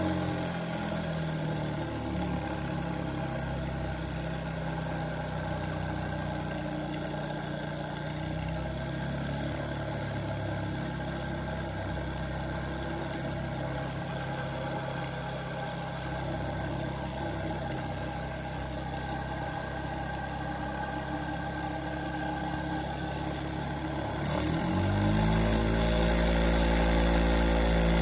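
Model steam engine running steadily; near the end it speeds up and gets louder, then begins to slow.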